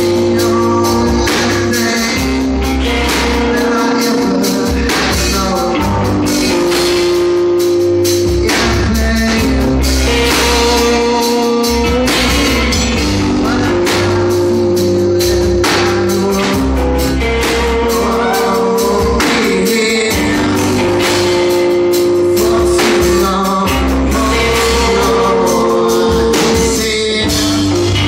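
Live rock band playing: electric guitars and a drum kit, with a man singing.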